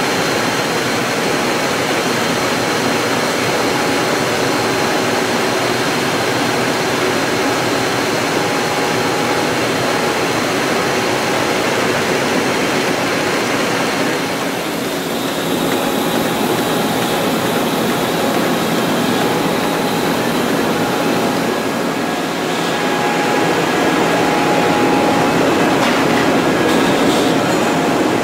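Web printing press running at speed, with its paper web streaming over the rollers: loud, steady machine noise with faint steady whines. The noise dips briefly about halfway through and runs a little louder near the end.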